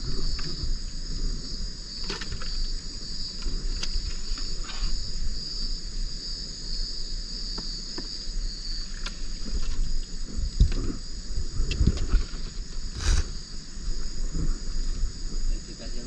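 Steady high-pitched trill of night insects, with close rustling and bumps of hands working fish out of a trammel net, and one sharp knock about thirteen seconds in.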